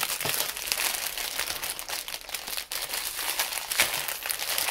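Clear plastic packaging bag crinkling and crackling continuously as it is handled and opened, with many small crackles.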